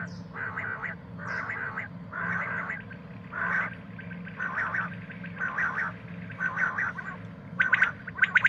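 Common quail giving a string of short, harsh calls about once a second. Near the end it breaks into a fast run of sharp, clicking pulses. A steady low hum sits underneath.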